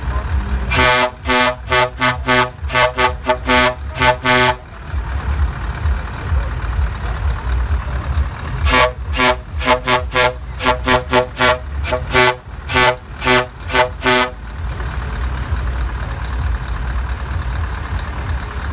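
Truck air horn sounding a quick rhythmic string of short toots, about three a second, all on the same pitch: about a dozen, then after a pause of about four seconds another run of about fifteen. A low steady rumble lies under it.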